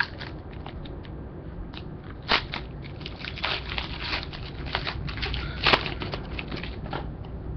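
Trading cards being handled and flipped through: scattered crinkles and clicks, with two louder snaps, one a little over two seconds in and one near six seconds.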